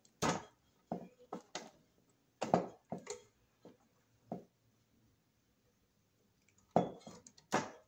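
Wire strippers on 12-gauge copper wire: a string of short sharp clicks and snips as the jaws close and pull the insulation off. The clicks come in a burst of about ten over the first four seconds, then stop for about two seconds, then three more near the end.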